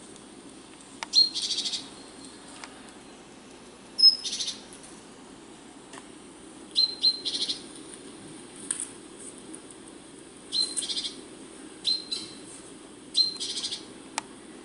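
Birdsong played through small computer speakers: about seven short, bright chirps, each running into a brief trill, coming every second or two over a faint steady hum.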